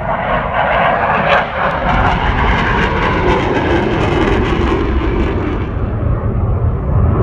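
Jet aircraft flying past: loud rushing engine noise whose high hiss fades out about six seconds in, leaving a low rumble.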